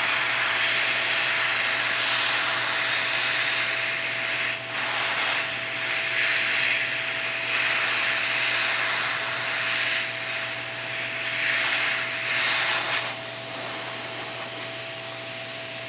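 Heat gun blowing hot air to shrink heat-shrink tubing: a steady rushing of air from its fan with a constant hum and a thin high whine, swelling and easing slightly as the nozzle is moved.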